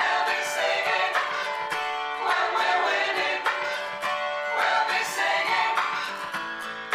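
Background music led by strummed acoustic strings, the chords changing about every second.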